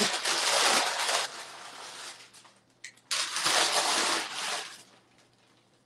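Rustling of a thin white cover sheet and the freshly pressed garment being pulled off a heat press and handled, in two stretches of crinkling with a click between them.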